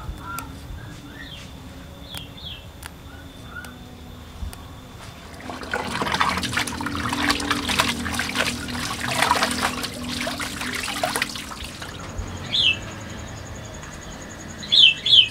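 Hands swishing and squeezing sweet potato leaves in a bowl of water, a wet splashing rustle from about five seconds in until about eleven. Small birds chirp briefly before and after it.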